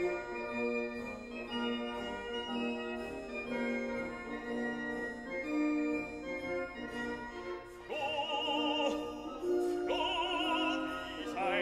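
Classical music: sustained instrumental chords, with an operatic singing voice with strong vibrato entering about eight seconds in.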